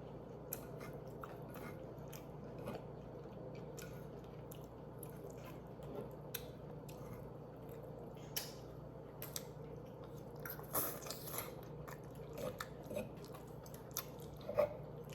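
A person chewing and biting food close to the microphone: faint, moist mouth clicks throughout, with a few louder, crunchier bites about ten to eleven seconds in.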